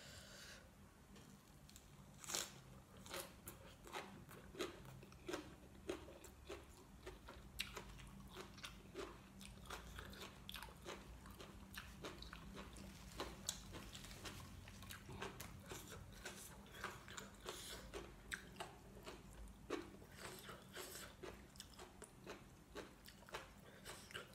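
Faint, close-up chewing with small irregular crunches, about one or two a second: a person eating a mouthful of braised chicken liver with fresh raw greens.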